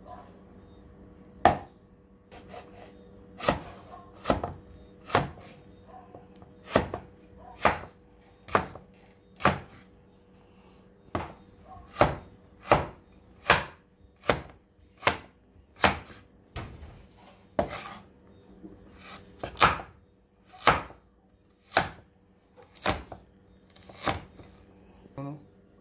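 A cleaver-style kitchen knife chopping carrots on a wooden cutting board: a string of sharp knocks of the blade on the board, roughly one a second and unevenly spaced.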